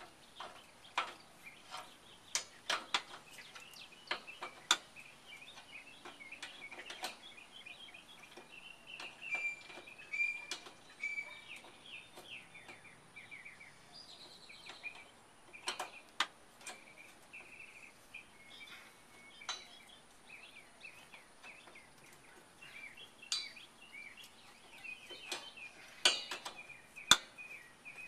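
Irregular sharp metal clinks of a hand wrench working the side-step bracket bolts under a pickup truck, the loudest near the end. Birds chirp in runs in the background.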